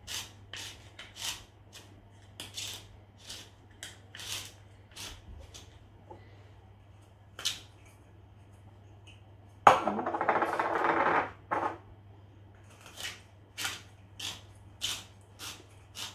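Hand-held Spirali spiralizer being twisted to cut a zucchini into vegetable noodles: a run of short rasping cutting strokes, about one and a half a second, with a pause midway. Near the middle, a louder scraping noise lasts about a second and a half.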